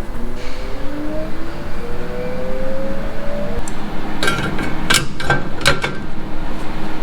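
Plasma cutter cutting sheet steel: a steady loud hiss with a slowly rising hum for the first few seconds, then a burst of sharp crackles and clicks about four to six seconds in, settling to a steady hum.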